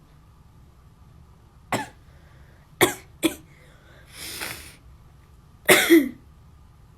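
A person's sharp, explosive coughs set off by a nasal swab: three short bursts, a breathy rush of air, then a louder, longer one with the voice dropping in pitch.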